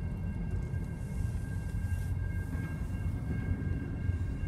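Diesel locomotive running low and steady at a grade crossing, heard from inside a car. Above it the crossing bell rings in high, steady tones.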